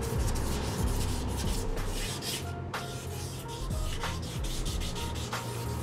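Hand sanding with a sheet of sandpaper on the filler-and-primer coat of a Honda C70's steel body panel: repeated back-and-forth rubbing strokes, smoothing the surface before paint.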